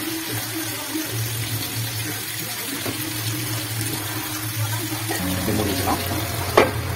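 Fish sizzling as it shallow-fries in oil on a tawa griddle, a steady frying hiss. A low hum runs underneath and shifts in pitch about five seconds in, and there is one sharp tap near the end.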